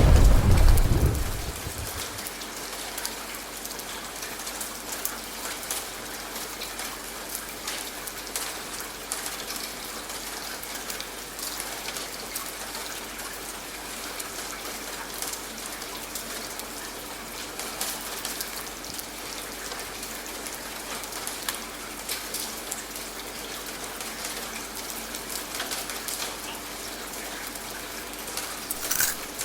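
Steady rain falling, with a clap of thunder right at the start that rumbles away over about two seconds.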